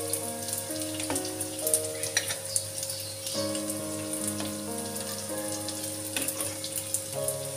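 Instrumental background music with held notes, over a sizzling, crackling frying sound and scattered clicks of a metal spoon stirring chicken in spice paste in an aluminium pot.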